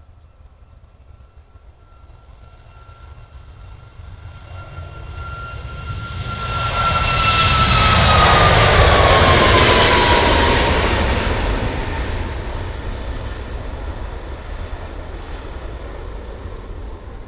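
Boeing 737-8 MAX's CFM LEAP-1B turbofans at takeoff thrust passing by: the jet roar builds, peaks about halfway through, then fades, while a high fan whine falls in pitch as the aircraft goes past.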